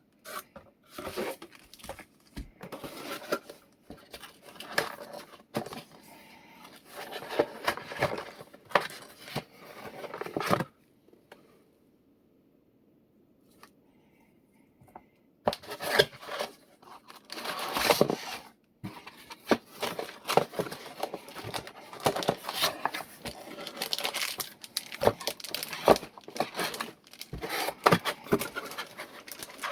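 Packaging of a new mechanical keyboard being handled and opened: irregular rustling, crinkling and tearing of wrapping, with small knocks and clicks. There is a pause of near silence of about four seconds a third of the way through.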